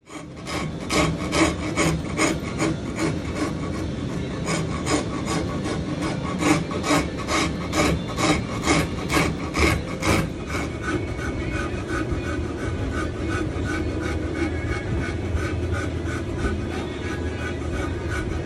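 Hand rasp filing a carved wooden gunstock in push strokes, about two a second. After about ten seconds it turns to quicker, lighter strokes.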